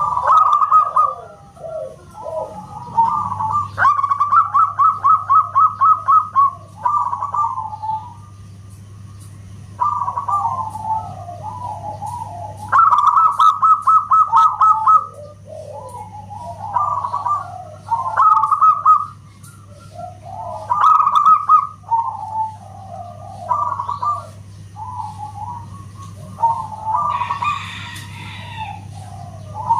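Zebra doves (perkutut) cooing: a string of loud, clear phrases, some of them long runs of rapid, evenly spaced staccato notes, with a steady low hum underneath.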